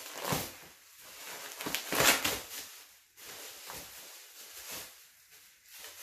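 Bubble wrap crinkling and rustling in irregular bursts as it is pulled off a cast prop pistol, loudest about two seconds in and dying down near the end.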